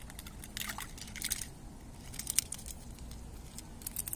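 Crackling and crunching handling noise in three short clusters, the sharpest click about two and a half seconds in, over a low steady outdoor rumble.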